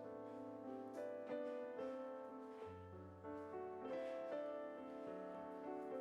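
Background music: a gentle piano melody over sustained bass notes.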